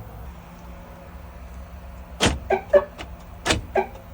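Truck power door-lock actuators worked by the keyless-entry remote: a clunk followed by two quick clicks, twice, in the second half, over a steady low hum.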